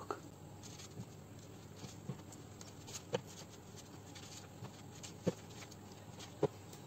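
Paper being handled by hand: stiff paper blades pressed and creased on a table, giving a handful of short, sharp taps and clicks, the loudest in the second half, over a faint steady hum.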